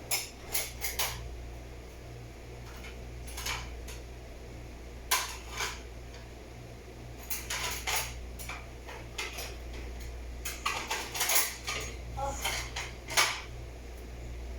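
A plate and bowl clinking and clattering as they are taken out and handled, in short clusters of sharp knocks, over a steady low hum.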